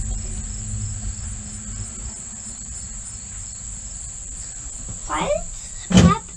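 A steady, high-pitched chorus of insects trilling in the trees, with a low rumble underneath. Two short, louder sounds break in near the end, the second the loudest.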